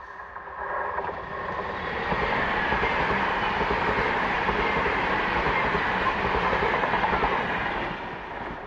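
A train passing close by on the rails, its wheels clattering. It builds up over the first two seconds, holds steady and loud, then drops away near the end.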